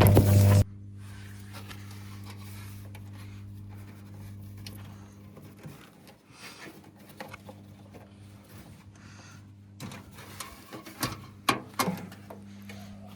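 Haier washing machine running with a brick inside: a steady motor hum under irregular knocks and clatters from the brick tumbling in the drum, which come thicker about ten seconds in. It opens with a loud humming tone that cuts off about half a second in.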